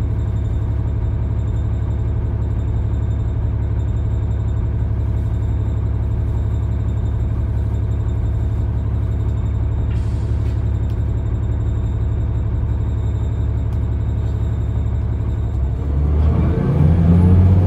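Cummins ISL diesel engine of a New Flyer D40LF transit bus idling steadily, heard from inside the cabin, then revving up about sixteen seconds in as the bus pulls away, with its pitch rising.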